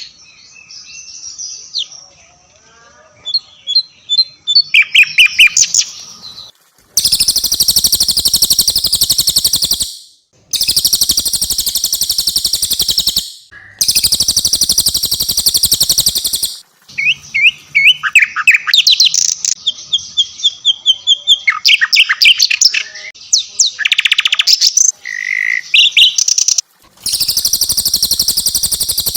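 Cililin and sikatan londo songbirds singing. Long, rapid, high-pitched rolling trills of about three seconds each alternate with sharp chirps and short whistled phrases.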